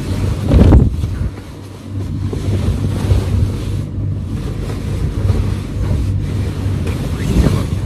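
A comforter rustling and brushing close to the microphone as it is pulled up and settled over a bed, with a heavy thump about a second in. A steady low hum runs underneath.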